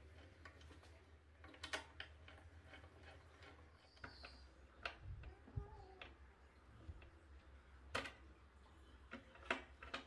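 Faint clicks and ticks of a hand screwdriver driving a screw through a sheet-metal latch plate and spring into a plywood door edge: a handful of separate sharp clicks, the loudest about eight and nine and a half seconds in, over a low hum.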